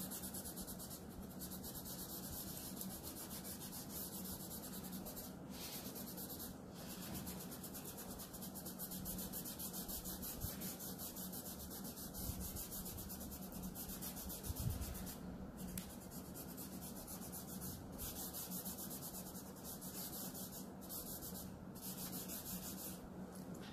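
Cotton rubbed back and forth over oil pastel on drawing paper, blending dark and light blue in the sky; a steady rubbing with a few brief breaks between strokes.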